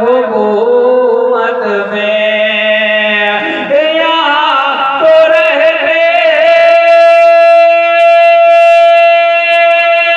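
Male voice singing a drawn-out, wordless melodic line of a naat, with a wavering vibrato around five to six seconds in. From about seven seconds, a single steady held instrumental note takes over.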